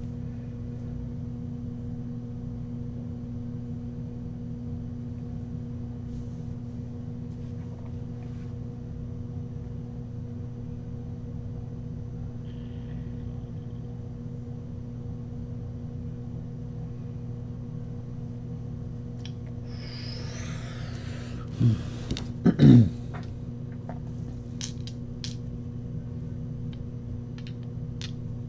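A steady low electrical hum. About twenty seconds in, handling noise with two loud thumps as a hand picks up a pair of plastic dice from the table, then a few light clicks of the dice in the hand near the end.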